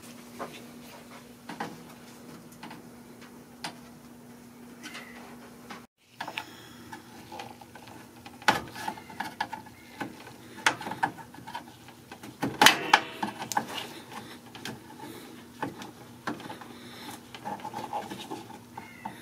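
Scattered clicks and knocks of hand tools and fasteners as the top of a 2008 Nissan Versa bumper is unfastened for removal, over a faint steady hum. The busiest, loudest clatter comes about two thirds of the way in.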